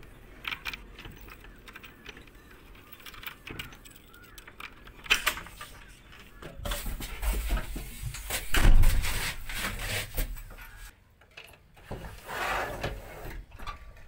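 Clicks, knocks and rattles of a person climbing into a JCB 3DX backhoe loader's cab and handling its door and glass window, with a heavy thump about nine seconds in.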